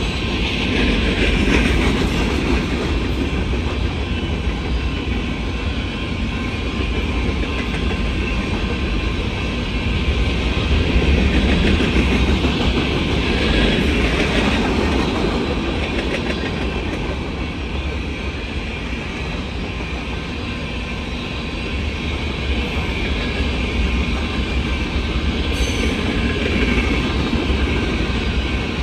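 Freight train of covered hopper grain cars rolling past: a steady rumble of steel wheels on the rails, with the clickety-clack of the wheels over the track.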